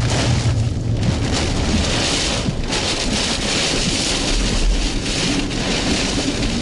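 Heavy rain pelting a vehicle in a storm, a dense steady hiss, with a low engine and road hum that fades out about a second in.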